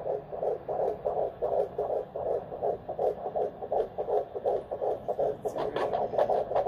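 Fetal heartbeat through a handheld Doppler's speaker: a fast, even whooshing pulse at about 160 to 170 beats a minute. Some scratchy noise comes in near the end.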